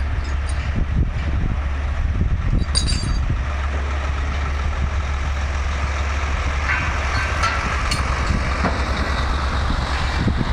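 Heavy diesel truck engine idling, a steady low rumble. About two-thirds of the way through, a passing truck adds a swell of engine and tyre noise.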